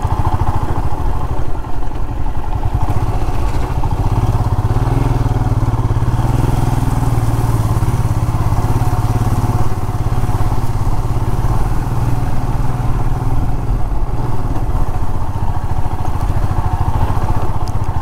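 Motorcycle engine running steadily while the bike is ridden, its low hum a little louder in the middle stretch.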